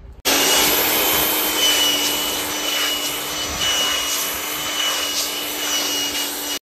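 Compressed-air blow gun hissing steadily as it blows dust out of a car's lightly clogged cabin (AC) air filter, with a thin whistle over the rush of air. It starts abruptly and cuts off suddenly near the end.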